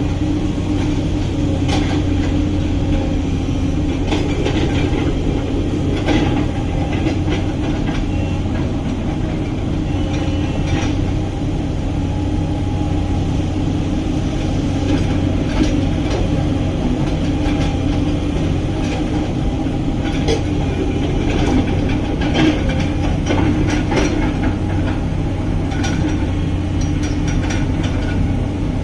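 Excavator's diesel engine running steadily, with scattered metallic clanks and clicks from the machine.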